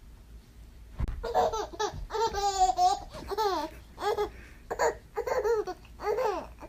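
A baby laughing: a run of about eight short, high-pitched laughs, starting about a second in.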